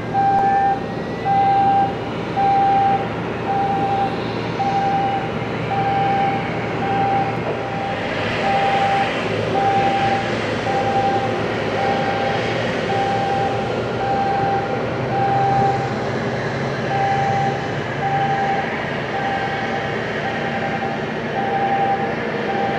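An electronic warning beeper sounding about once a second, a single steady pitch, over the steady noise of the McDonnell Douglas MD-90's idling jet engines and the pushback tug.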